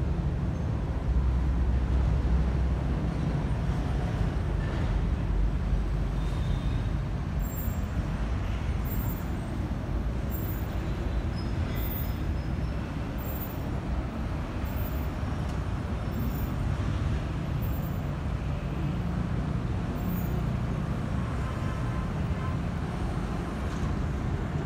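Steady low rumble of background road traffic and vehicles, with no single engine standing out.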